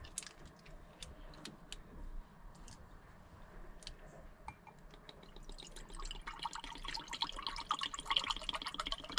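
A few light clicks as a plastic bottle cap is handled, then black sesame drink poured from the plastic bottle into a mug, a dense trickling and splashing starting a little past halfway.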